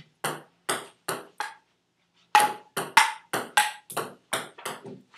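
Table tennis rally: a ping-pong ball clicking off paddles and bouncing on the table, about a dozen sharp hits roughly a third of a second apart. Four hits come first, then a short pause, then a louder run of eight.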